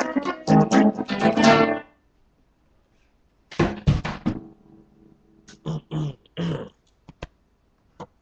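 Acoustic guitar being strummed in a quick rhythm, stopping about two seconds in; after a short gap one more chord rings out and fades, followed by a few scattered short knocks.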